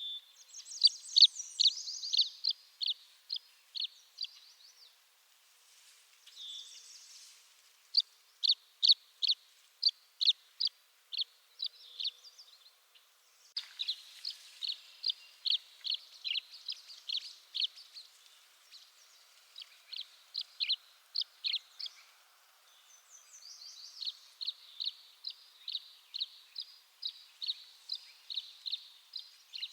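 Tree swallow singing: runs of short chirps repeated about three a second, broken by short pauses, some runs opening with a higher note.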